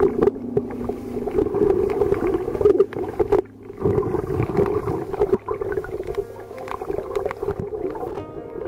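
Muffled underwater noise from a camera submerged in seawater: a steady, dull churning of water with many scattered small clicks and knocks.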